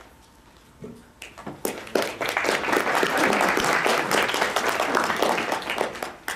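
Audience applauding: a few scattered claps about a second in, quickly building into full, dense applause that fades away near the end.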